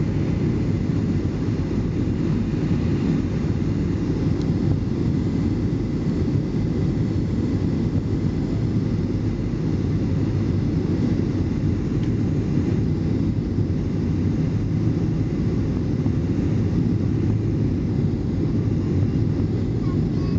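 Steady cabin noise inside a Boeing 737 airliner on approach: a constant rush of engine and airflow noise, heaviest in the low range, with a faint steady high tone above it.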